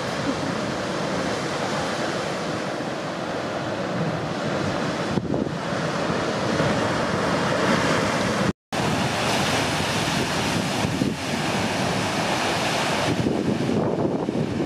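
Ocean surf breaking and washing ashore in a steady rush, mixed with wind on the microphone; the sound cuts out for an instant a little past halfway.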